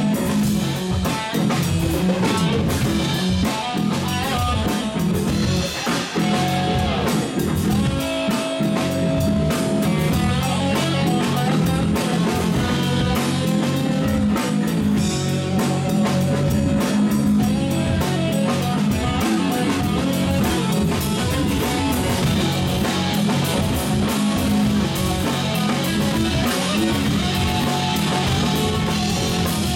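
Live blues-rock band playing an instrumental passage: electric guitar lines with held and bending notes over bass guitar and drum kit.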